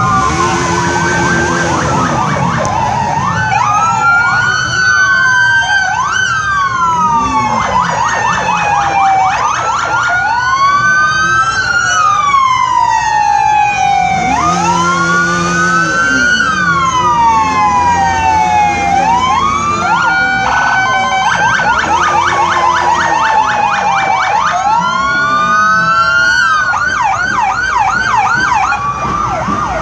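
Several emergency-vehicle sirens sounding at once: slow rising-and-falling wails overlapping with stretches of fast yelping.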